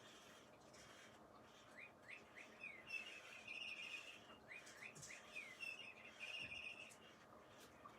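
A bird singing faintly, twice: each phrase is a few quick slurred notes followed by a rapid trill.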